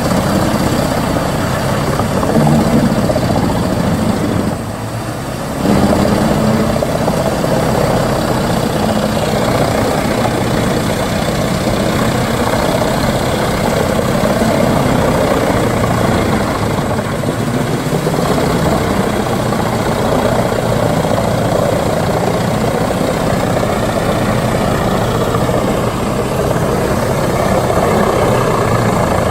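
Wood chipper running steadily with a continuous heavy engine drone, briefly dropping in level about five seconds in.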